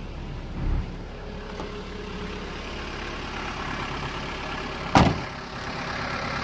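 Toyota 14B 3.7-litre four-cylinder diesel engine of a 1994 Toyota Dyna fire truck idling steadily. A low thump comes under a second in, and the cab door is shut with a sharp bang about five seconds in.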